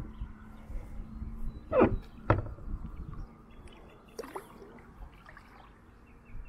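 Kayak paddle strokes in calm water: two sharp splashes about half a second apart, about two seconds in, and a fainter one about four seconds in.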